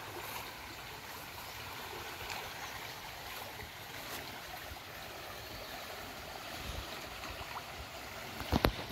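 Floodwater in a swollen, muddy creek rushing past with a steady rush. A few sharp knocks near the end stand out above it.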